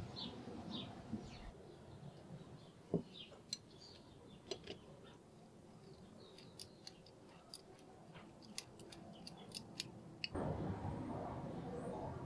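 Small sharp metallic clicks and ticks from the steel T-handle and threaded screw of a small restored watchmaker's vise being fitted and turned by hand. A soft brushing near the start and again near the end, as a small brush works over the screw threads.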